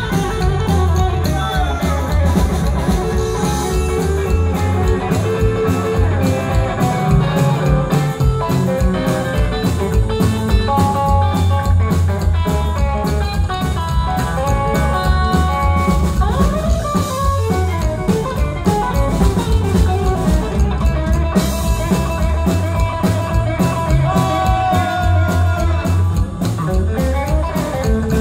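Rockabilly trio playing live: hollow-body electric guitar, upright bass and drums.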